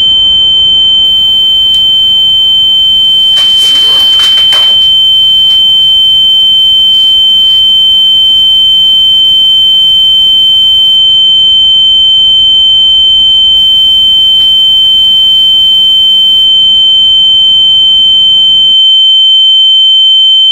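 A loud, steady high-pitched electronic tone held without a break, with a fainter lower tone beneath it, over faint room noise. A brief rustle comes about four seconds in, and near the end the room noise cuts out, leaving the tone alone.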